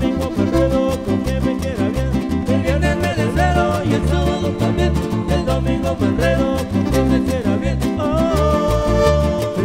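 Amplified live band playing Latin dance music: a steady, bouncing bass line under a melody of held notes.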